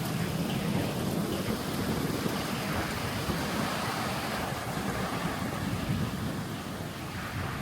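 Heavy rain pouring down in a steady rush.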